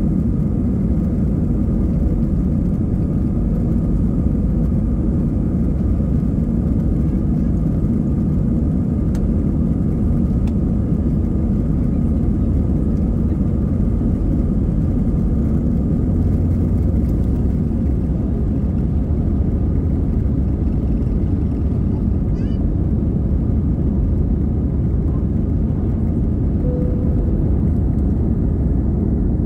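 Airbus A320 heard from the cabin during its takeoff run: a steady, loud engine roar at takeoff thrust with runway rumble, the airliner lifting off and climbing partway through.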